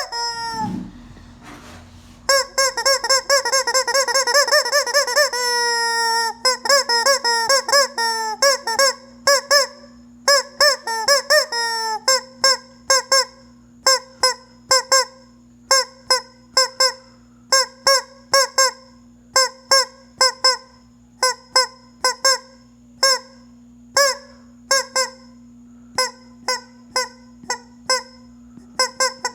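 Squeaky rubber chicken toy: a long wavering squeal, then a long run of short honking squawks, sometimes about two a second, over a faint steady low hum.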